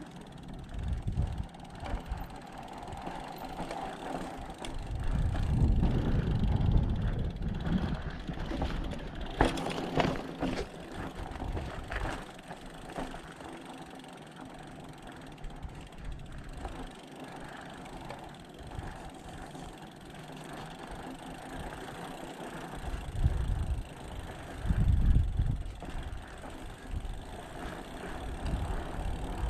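Mountain bike rolling over rock, its rear freehub ratchet clicking while coasting amid general rattle, with a cluster of sharp knocks about ten seconds in. Two spells of low rumble come through, about five seconds in and again near the end.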